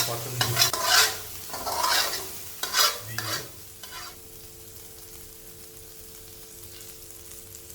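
A spatula scrapes and stirs tomato-and-spice paste frying in ghee in a pan, in quick strokes about twice a second, over a sizzle. Near the halfway point the stirring stops, leaving a quieter steady sizzle with a faint hum.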